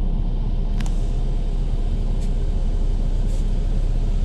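Steady low rumble of an AC sleeper bus on the move, heard from inside the cabin, with a sharp click about a second in and two fainter ticks later.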